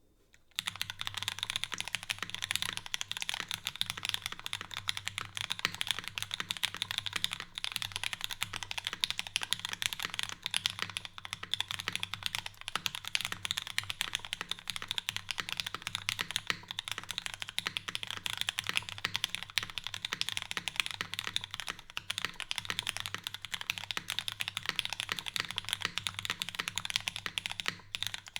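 Continuous typing on a custom mechanical keyboard, a Singa Jaguar V2 with an X-ring-mounted aluminium plate, lubed Cherry MX Black linear switches and GMK keycaps. It is a dense, steady stream of keystroke clacks that begins about half a second in.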